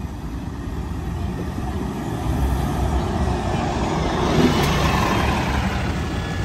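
A 2018 New Flyer XD40 diesel city bus pulling away from a stop and driving close past, engine and road noise growing louder to a peak about four and a half seconds in, then easing slightly.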